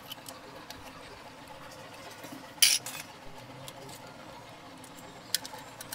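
Hands cleaning small sea snails over a stainless steel bowl: scattered light clicks of shell, with a louder short clatter of shell against the steel bowl about two and a half seconds in and one sharp click near the end.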